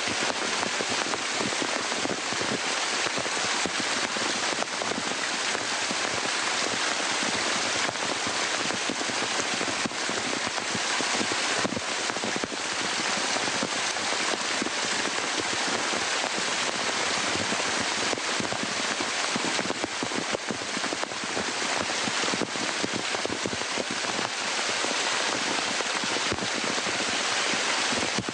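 Waterfall: water pouring and splashing over a rock face as a steady, dense hiss.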